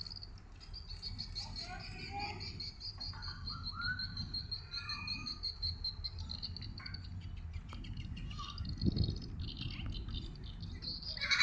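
An insect trilling high and rapidly pulsed for several seconds, with birds chirping now and then over a steady low rumble; a dull low thud about nine seconds in.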